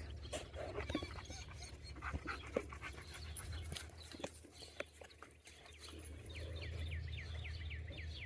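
A dog panting, with scattered small clicks and rustles. From about six seconds in, a bird sings a rapid series of short falling notes, about four a second.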